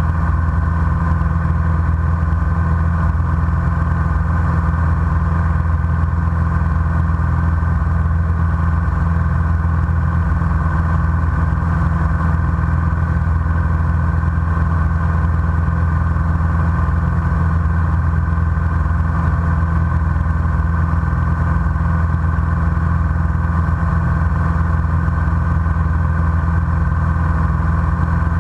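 Single-engine light aircraft's engine and propeller running steadily in flight, heard inside the cockpit.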